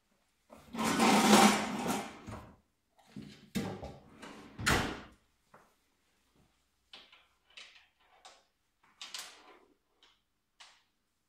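Workshop handling noises: a loud scraping clatter, two sharp knocks, then a series of short, lighter clicks as tools and parts are handled.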